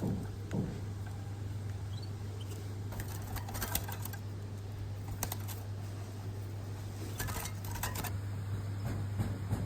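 Black-naped oriole moving about its cage, scattered light taps and clicks in small clusters over a steady low hum.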